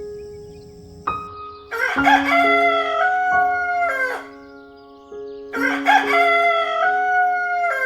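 Rooster crowing twice, each crow about two and a half seconds long, over steady background music.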